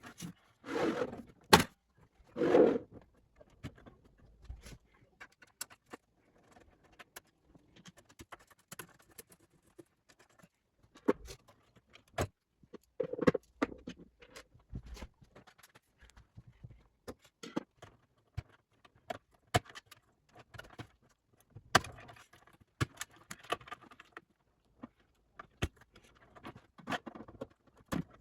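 Hands working on a desktop gaming PC: scattered metallic clicks, knocks, rattles and short scrapes of parts and screws being handled, with a few louder clatters along the way.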